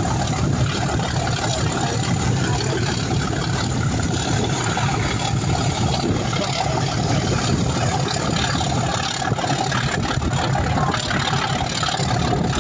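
Class 37 diesel locomotive's English Electric V12 engine working hard under load, the steady 'thrash' heard from a carriage of the train it is hauling, along with the running noise of the moving train.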